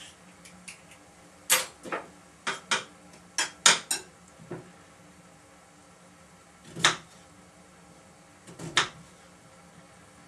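Kitchen utensil clattering against cookware: a quick run of about eight sharp knocks between about one and a half and four and a half seconds in, then two more clatters around seven and nine seconds in.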